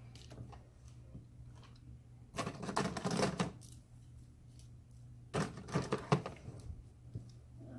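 Handling noise close to the phone's microphone: a hand knocking and rubbing against the phone in two bursts of clatter and rustle, about two and a half seconds in and again at about five and a half seconds, over a steady low hum.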